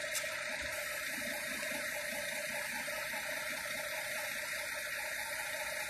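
Compressed air hissing steadily from a locked-on air chuck, the valve core removed, into a tubeless truck tyre whose bead is not yet seated. A faint steady tone sits under the hiss.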